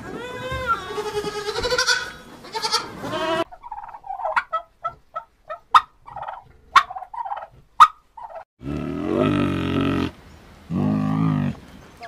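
A goat bleating in wavering calls for about three seconds, then a domestic turkey calling in a string of short notes with three sharp clicks about a second apart. Near the end come two low, drawn-out calls from a large animal.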